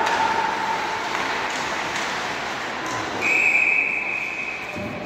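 Ice hockey referee's whistle blown once, a long steady blast starting about three seconds in, stopping play after a scramble in front of the net, over the general noise of the rink.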